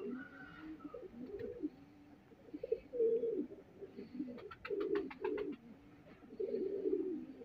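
Domestic pigeons cooing: a series of low, rolling coos, with a short run of quick clicks about four and a half seconds in.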